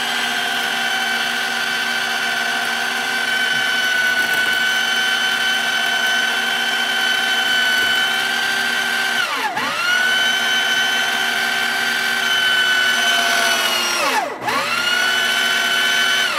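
A homemade roof crane's winch motor runs with a steady high whine while winding its cable. Twice, about two thirds of the way through and again near the end, it briefly slows, its pitch dropping sharply, then spins back up.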